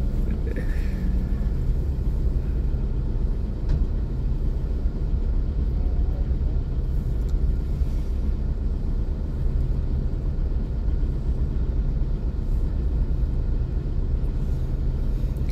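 Steady low engine rumble on a ferry's enclosed vehicle deck, heard from inside a parked car, with a faint click or two.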